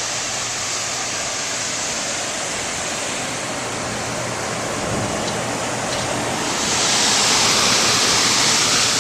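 Carrier Weathermaker packaged rooftop HVAC unit running with a new blower belt: a steady rush of air over a low motor hum, growing louder about seven seconds in.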